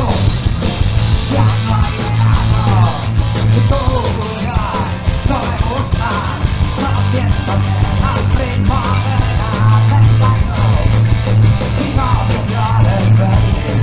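Punk rock band playing live: electric guitar, bass guitar and drums, with the lead singer singing over them and a heavy bass line.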